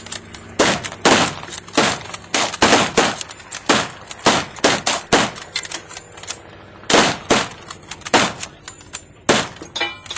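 Volley of rifle fire from a German K98 Mauser and an American 1917 Eddystone, bolt-action rifles firing their five-round loads: a dozen or more sharp shots at uneven spacing, with a pause of about a second and a half midway.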